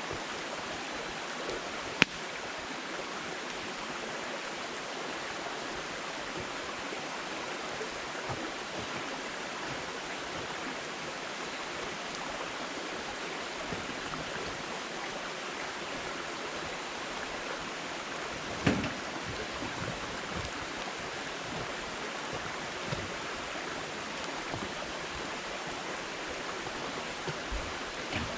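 Wood fire burning with a steady hiss and scattered crackles of burning firewood; a sharp pop about two seconds in and a louder burst of crackling about two-thirds of the way through.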